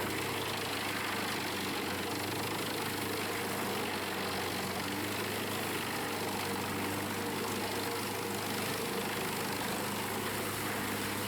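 Diesel engine of an industrial drum wood chipper running steadily at an even speed, a constant hum with no change in pitch.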